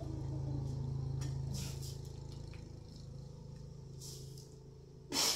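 A low steady hum that fades away over the first few seconds, a few faint rustles, then one short, loud breathy puff of a person blowing near the end.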